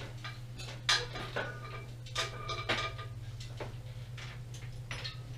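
Metal parts and tools clinking and knocking several times while being handled, some strikes giving a short metallic ring, over a steady low hum.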